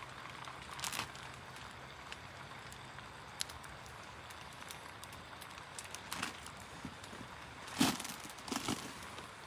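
A few scattered light knocks and clicks, such as things being handled, over a faint steady background; the loudest knock comes about eight seconds in.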